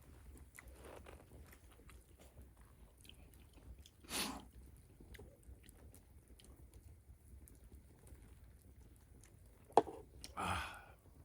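A person chewing food with small scattered clicks, with a short breathy sound about four seconds in and again near the end, just after a sharp click.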